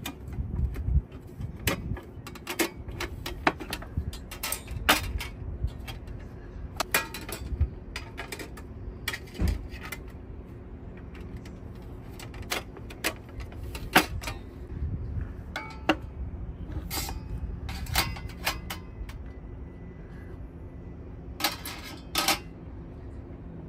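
Stainless-steel frame and folding wire legs of a Snow Peak Flat Burner clicking and clinking as they are unfolded and handled, an irregular scattering of sharp clicks and light knocks. A couple of louder knocks come near the end as the burner is set down into the wooden table.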